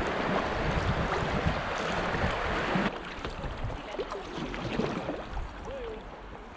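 Fast river water rushing over a shallow riffle around a kayak. About three seconds in it cuts abruptly to quieter, calm water with faint paddle splashes.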